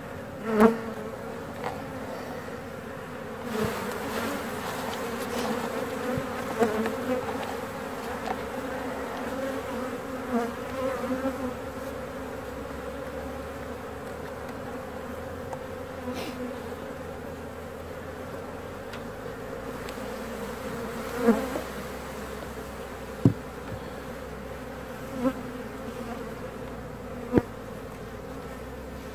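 Honeybee colony buzzing from an opened hive, a steady hum all through. A few sharp knocks stand out, one just after the start and about four spaced roughly two seconds apart near the end.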